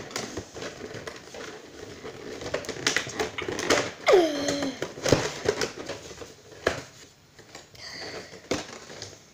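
Plastic packaging being handled: an irregular run of clicks, crinkles and light knocks, with a short falling squeak about four seconds in.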